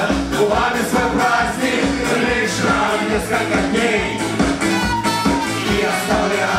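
Live band playing an upbeat dance song through a PA: singing over electric guitars, bass, trumpet and a steady drum beat.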